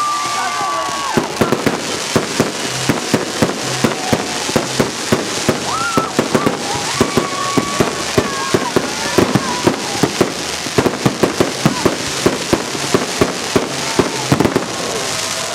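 Fireworks display: a dense, irregular run of sharp cracks and bangs from bursting fireworks, several a second, over a constant hiss.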